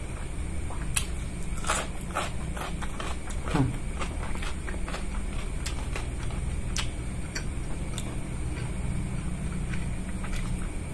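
Close-up eating sounds: wet chewing and mouth clicks as a man eats rice, noodles and potato by hand, with one short sound falling in pitch about three and a half seconds in. A steady low hum runs underneath.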